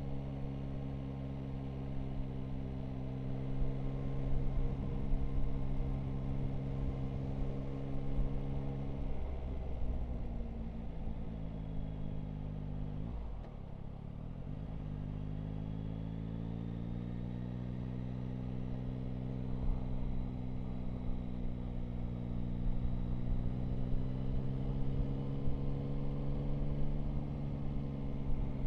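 Yamaha Tracer 9 GT's three-cylinder engine running as the motorcycle is ridden, with wind rush on the microphone. The engine note drops about nine seconds in, dips lowest near the halfway point, then rises again as the bike picks up speed.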